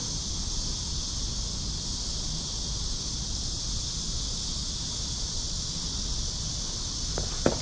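Steady high insect buzz over a low wind rumble on the microphone, with one sharp knock near the end.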